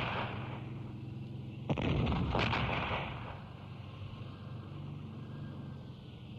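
Battlefield sound effect of artillery fire: a low continuous rumble with two sudden blasts about two seconds in.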